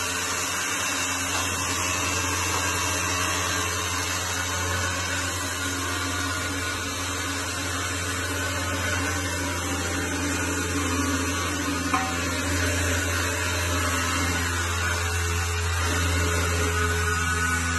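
A steady drone from a running electric motor, a low hum with a few steady overtones and some hiss over it, unchanging throughout.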